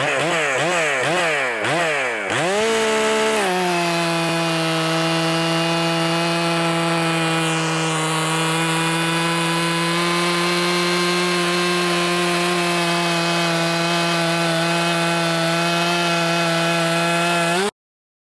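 Stihl MS 400 C two-stroke chainsaw revved up and down rapidly for about three seconds, then held at a steady full-throttle pitch while its machine-ground square-filed chain cuts through a large log. The sound cuts off suddenly near the end.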